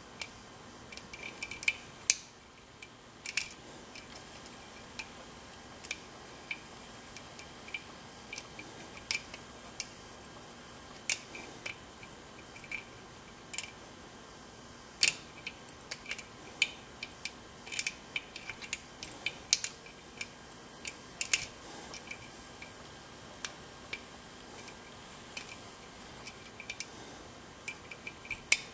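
Lock pick and tension wrench working inside an ASSA Twin lock cylinder: small, irregular metallic clicks and ticks, with a few sharper snaps.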